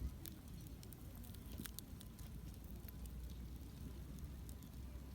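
Wood campfire crackling: irregular sharp pops and snaps scattered throughout, over a steady low rumble of burning.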